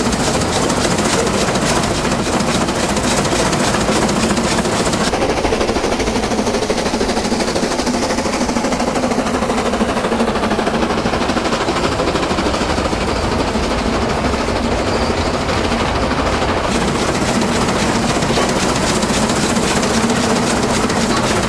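Narrow-gauge steam locomotive working a train, its exhaust beating in a rapid, steady chuff, heard close from the side of the cab. Between about five and seventeen seconds in the sound changes character, with less hiss at the top.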